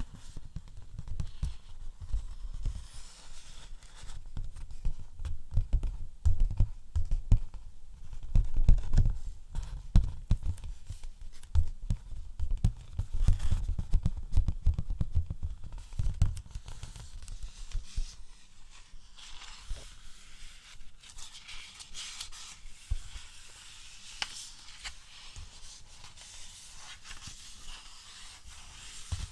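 ASMR trigger sounds: fingers tapping quickly on an object close to the microphone, with heavy low thumps, turning about two-thirds of the way through to lighter scratching and rustling.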